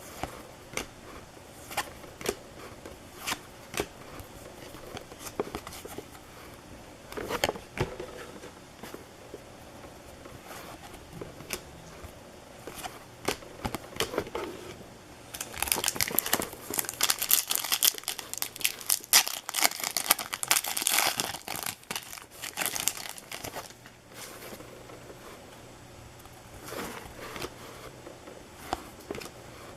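Baseball card pack wrappers being torn open and crinkled, with scattered light clicks and taps as the cards are handled. From about halfway through there is several seconds of dense crinkling.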